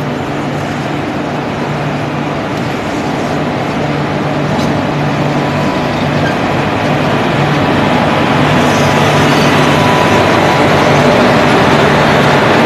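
WAP-4 electric locomotive departing and passing close by: a steady low hum over the rumble of its wheels on the rails, growing louder as it draws alongside.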